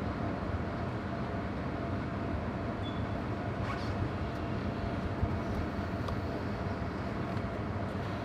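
Steady low rumble and hum of a large merchant ship under way, heard on board, with a faint steady tone and a few faint ticks over it.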